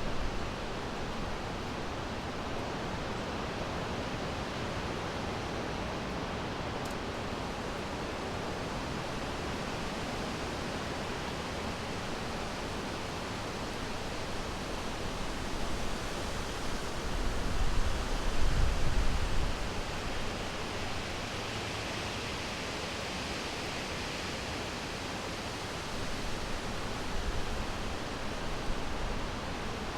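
Summer wind blowing through a forest: a steady rushing hiss that swells into a stronger gust with a low rumble a little past halfway, and rises again briefly near the end.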